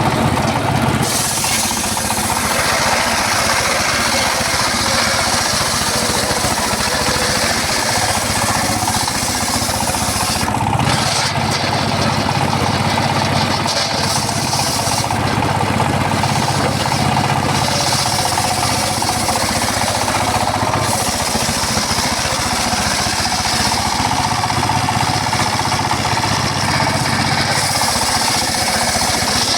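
Homemade circular saw rig running steadily and cutting gmelina wood, with a dense rattling noise. The high hiss of the blade in the wood comes and goes several times as the wood is fed through.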